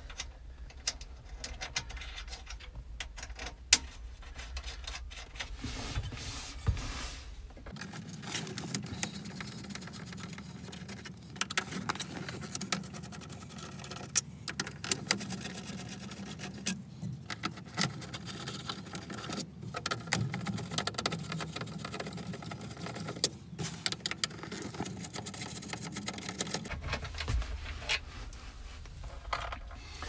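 Scattered small clicks, taps and light rattles of hand work at an old pickup's dashboard: screws being taken out and parts handled around the instrument cluster.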